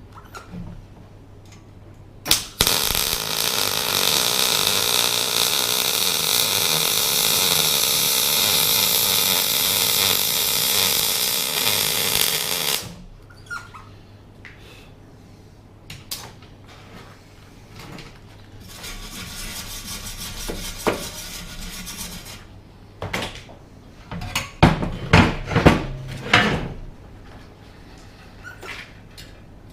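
Metalwork on a steel car subframe: a loud steady noise that runs for about ten seconds and cuts off suddenly, a quieter stretch of similar noise later, then a run of sharp metal clanks and knocks near the end.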